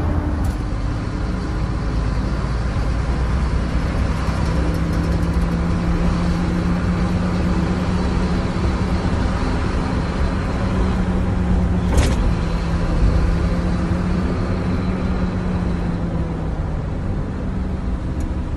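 Mercedes-Benz Atego truck's diesel engine running steadily while driving, with a steady drone over it for most of the stretch. A single sharp click about twelve seconds in.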